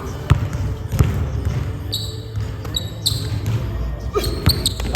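A basketball bouncing on a gym floor in uneven dribbles, with several short high sneaker squeaks in the middle and near the end.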